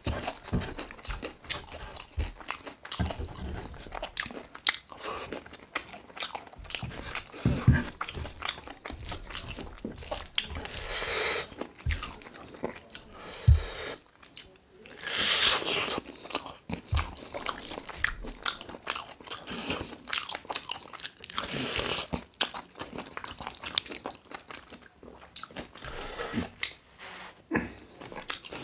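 Close-miked eating: biting and chewing chicken drumsticks with rice, with crunching and moist mouth sounds and short noisy swells now and then, such as slurping or sucking at the meat.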